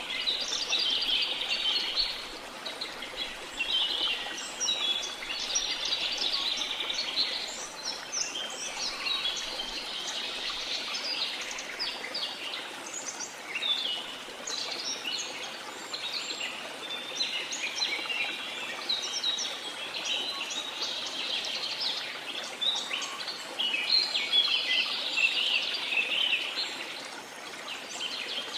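Many birds chirping and calling over one another, continuously and densely, above the steady, even rush of falling water from a waterfall.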